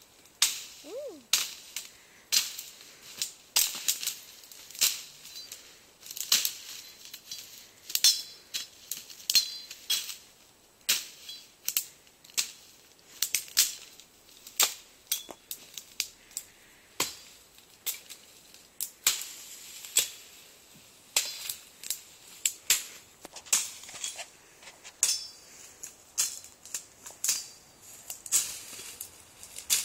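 Machete strokes chopping through brush and saplings: a long, irregular series of sharp cracks, about one or two a second, some with a brief metallic ring from the blade.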